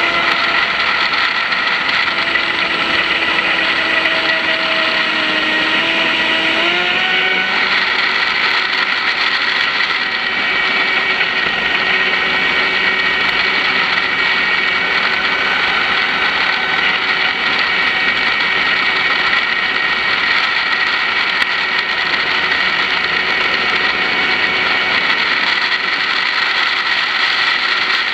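Brushless electric motor of an RC twin-hull speedboat running at speed, a steady whine over a rushing noise. Its pitch dips slightly and then steps up about seven seconds in, and holds steady after that.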